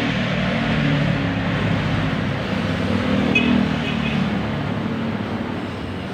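Honda TMX 125 Alpha's single-cylinder four-stroke engine running at idle during a tune-up, its speed wavering slightly and easing off a little near the end. A brief light metallic clink comes about three and a half seconds in.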